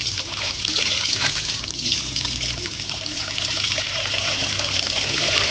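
Water running in a steady stream and splashing.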